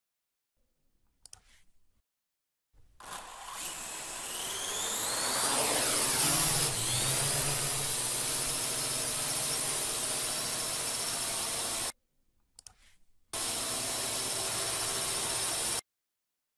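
Multirotor drone's electric motors and propellers spinning up with a rising whine, then running at a steady high whine. It cuts off suddenly, a faint click follows, and it starts again steadily before cutting off once more.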